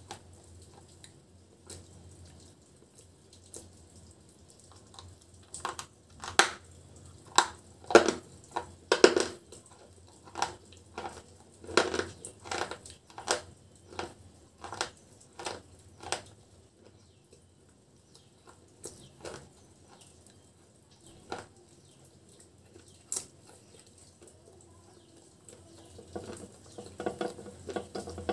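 Close-up crunching as a dry, chalky white chip coated in crumbly powder is chewed: crisp crunches about every half second from about six seconds in, thinning out after about sixteen seconds. Near the end comes a denser, softer crackling as a piece is dipped and scraped in a clay pot of powder.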